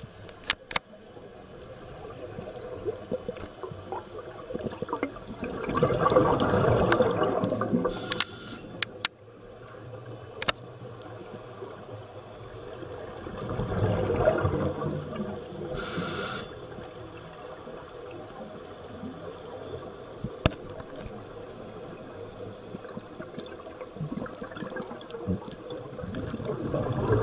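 A scuba regulator heard underwater: three bursts of exhaled bubbles, each gurgling for two to three seconds, the first two followed by a short hiss of inhalation, at a slow breathing pace of about one breath every eight seconds. A few sharp clicks sound in between.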